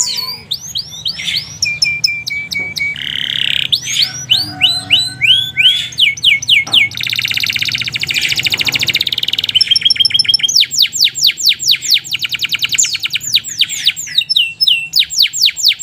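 Domestic canary singing without pause: strings of quick repeated whistled notes broken by buzzing rolls, and a long fast run of rising notes in the second half.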